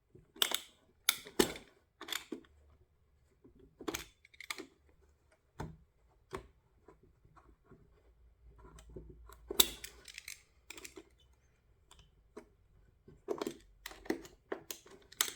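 Knife blade cutting and scraping into the hard plastic of a car headlight housing, in short irregular strokes and clicks with pauses between them.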